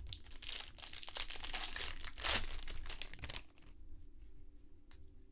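Foil trading-card pack wrapper crinkling and tearing open for about three and a half seconds, loudest a little past two seconds in, followed by one small click near the end.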